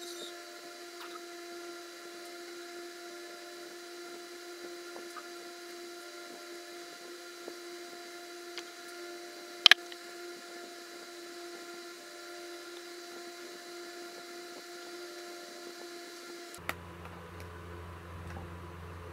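A steady hum at several fixed pitches that cuts off abruptly near the end, giving way to a lower hum. A single sharp click about ten seconds in is the loudest sound.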